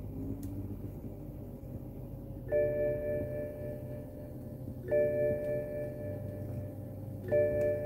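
An electronic bell-like chime sounds three times, about two and a half seconds apart, each tone starting suddenly and ringing on for about two seconds, over a low steady hum.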